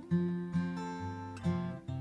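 Acoustic guitar playing an instrumental intro: chords picked and left to ring, with new notes struck about every half second to a second.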